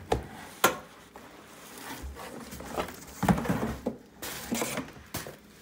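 Handling noise as a covered espresso machine is lifted out of its cardboard shipping box: two sharp knocks in the first second, then rustling of the fabric cover and cardboard scraping, with a bright rustle a little past the middle.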